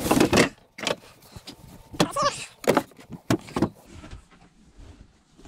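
Handling noise from a fold-out berth being made up: a string of knocks, scrapes and rustles as cushions and boards are moved, with a brief squeak about two seconds in. The noise gets quieter after about four seconds.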